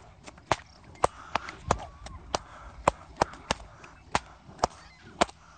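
Two whips, one in each hand, cracking in turn through the back-to-back routine of reverse cattleman's cracks, fast figure 8s and Tasmanian cutbacks. About a dozen sharp cracks come in a steady rhythm, roughly two a second.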